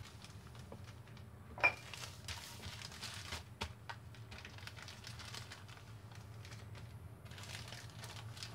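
Small plastic zip bags filled with inoculated soybeans being handled, pressed and set down on a wire rack: light crinkling and soft taps, with one sharp click about one and a half seconds in, over a low steady hum.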